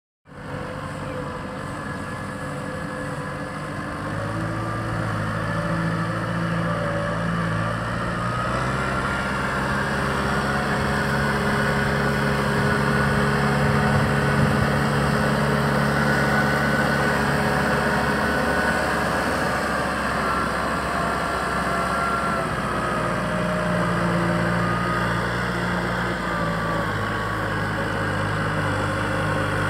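Kubota M6040 SU tractor's four-cylinder diesel engine running steadily as the tractor cultivates a flooded, muddy rice paddy. Its pitch steps up or down a few times.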